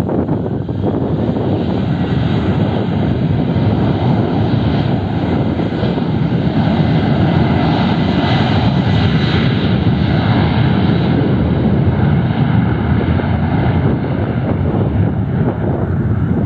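Boeing 737 airliner's twin jet engines at takeoff thrust during the takeoff roll. It is a dense, steady jet noise with a thin high fan whine over it, loudest around the middle as the aircraft passes.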